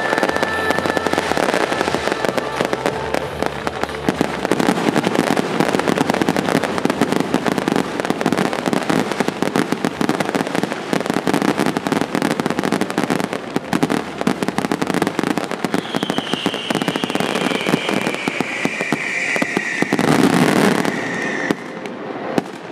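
Fireworks crackling densely and without a break, a rapid stream of small bangs. About twenty seconds in comes a louder burst, with a high tone falling in pitch just before it.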